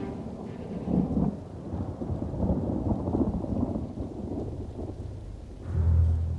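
Thunder rumbling in long rolls over rain, loudest about a second in; a louder low swell comes in near the end.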